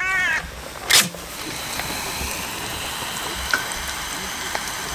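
Eggs with bacon and sausage frying in a pan on a portable gas stove: a steady sizzle from about a second in. Just before it, a short falling cat-like call and a sharp swish.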